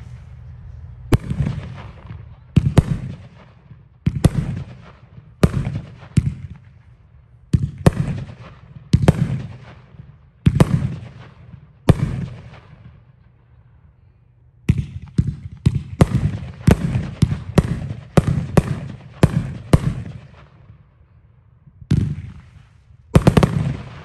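A 500-gram, 20-shot consumer firework cake firing a string of sharp shots, each trailing off with an echo. The shots come about one every second and a half at first, then a quicker run after a short lull, and a last few near the end.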